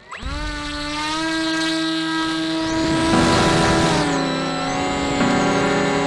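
Motor and propeller of an FPV model aircraft spinning up quickly to a steady high-pitched whine at takeoff, then easing back a little in pitch about four seconds in.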